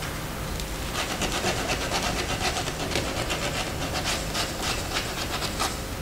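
Scratchy rubbing on carved wood by hand, in quick back-and-forth strokes about four to five a second. It starts about a second in and stops near the end.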